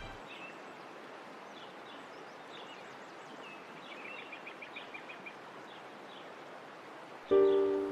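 Faint outdoor river-side ambience with small birds chirping, including a quick run of rapid high notes about four to five seconds in. Near the end, music with a sustained chord comes in suddenly and loudly.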